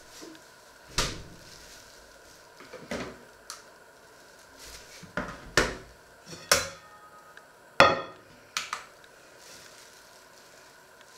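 Enamelware bowl, plate and saucepan being set down and moved on a wooden worktop: a series of separate knocks and clinks, a couple with a short metallic ring, the loudest about eight seconds in.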